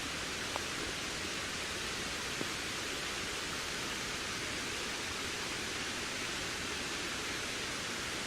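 Steady wind, an even rushing hiss that does not rise or fall, with a couple of faint ticks about half a second and two and a half seconds in.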